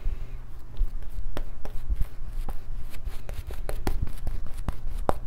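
Shaving brush working lather onto the neck: scattered soft clicks and rustles of the bristles over a steady low hum.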